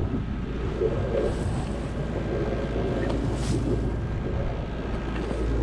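Small sailboat's engine running steadily while motor-sailing, with wind buffeting the microphone.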